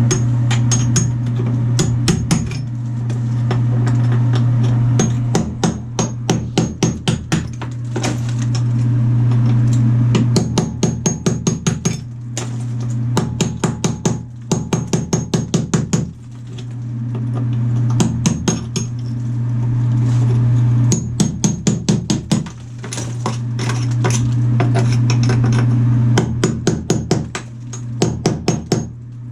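Quick runs of hammer strikes chipping out shower-wall tile and its thick mortar bed, several blows a second, in groups with short pauses between. A steady low hum runs underneath.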